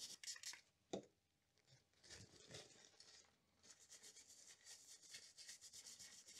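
Faint scrubbing of a toothbrush's bristles over a freshly soldered circuit board to clean it, then the brush rubbed back and forth on a paper towel in quick, even strokes. A light tap about a second in.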